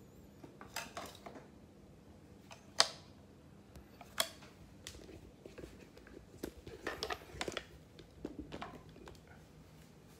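Handling noise: scattered light clicks and clatters as plastic party props, including novelty star-shaped glasses, are taken out of a box and handled. The sharpest click comes about three seconds in, with a cluster of small rattles around seven seconds.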